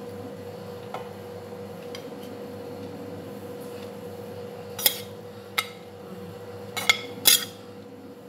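Kitchen utensils and a plate clinking against a stainless steel pot as rice is layered in: a few sharp clinks in the second half, the loudest about five and seven seconds in, over a steady hum.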